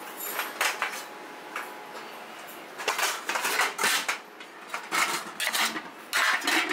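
Aluminium idli steamer pot, its lid and idli plates clanking and rattling as they are handled. A few light knocks at first, then a run of louder metallic clatters from about three seconds in.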